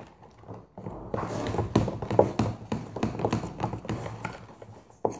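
Small plastic spoons stirring glue-and-glitter slime in plastic tubs: a quick run of clicks and taps against the tub sides, starting about a second in.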